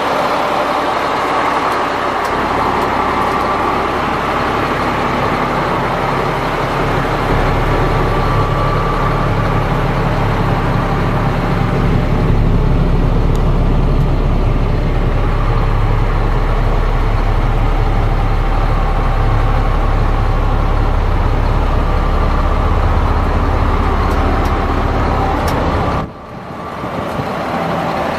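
Caterpillar C7 diesel engine of a Sterling L8500 truck idling steadily, heard from inside the cab. The sound drops away suddenly for a moment near the end.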